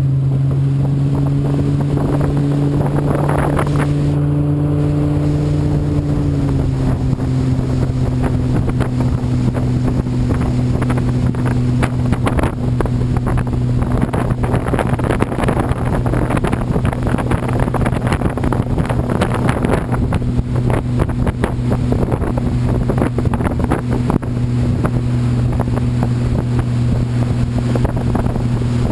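Wakeboard tow boat's engine running steadily at towing speed, its pitch stepping slightly down about six seconds in, with wake spray and wind rushing over the microphone.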